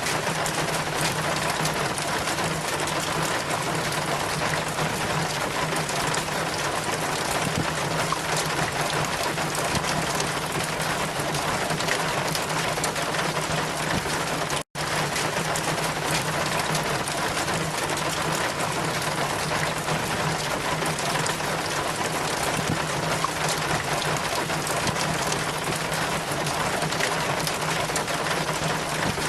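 Steady heavy rain, a dense even hiss with a low steady hum under it. It cuts out for an instant about halfway through.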